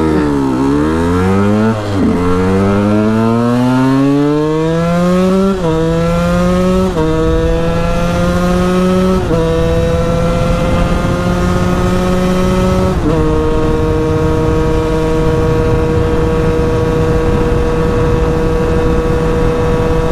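KTM EXC 125 two-stroke single-cylinder engine pulling away from a stop and accelerating hard, its pitch climbing in each gear and dropping at five upshifts. After the last shift, about thirteen seconds in, it holds a steady high note at constant speed, with wind rushing over the helmet microphone.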